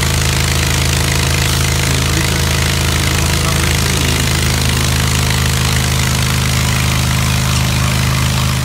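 An engine running steadily at a constant speed under a continuous hiss of water spraying from a fire hose.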